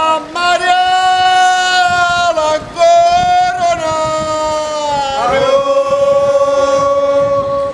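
A single high voice singing a slow devotional chant in long held notes, sliding up or down into each new note.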